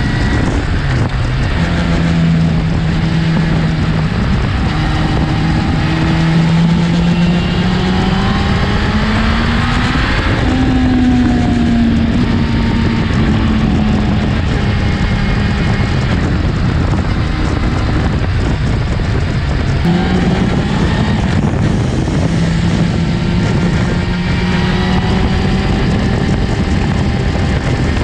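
Honda CBR900RR Fireblade's inline-four engine running under way at road speed, under a steady rush of wind and road noise. The engine note climbs steadily for about ten seconds, then slowly falls away, with a jump in pitch about two-thirds of the way through before it settles into a steady cruise.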